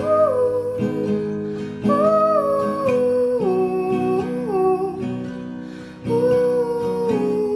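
Background song: acoustic guitar chords under a sung melody of long, gliding notes.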